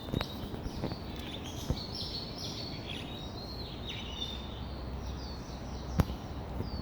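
Small birds chirping, many short quick chirps one after another, over a steady background hum of outdoor noise, with a sharp click about six seconds in.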